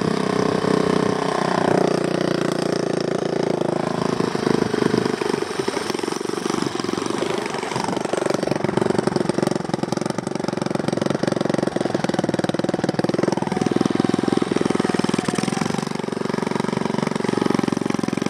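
Honda CT90's small single-cylinder four-stroke engine running close to the microphone as the bike is ridden slowly over gravel, with the engine speed rising and falling.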